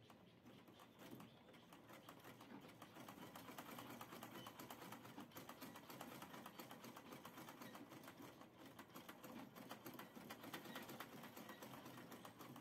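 Two Lion manual sewing machine stitching steadily, its needle and shuttle mechanism making a fast, even run of light clicks.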